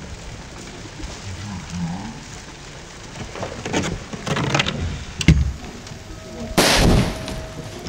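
Scattered crackles, then near the end a sudden loud blast lasting about a second: a shotgun fired into a row of WD-40 cans, setting them off in a fireball.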